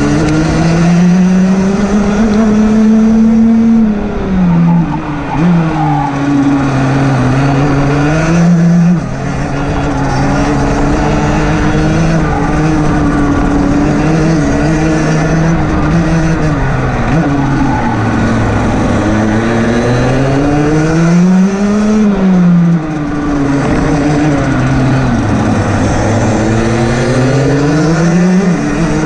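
Rotax DD2 kart's 125cc two-stroke engine racing: its pitch climbs steadily, then drops sharply as the revs fall for corners, most clearly about four, nine and twenty-two seconds in.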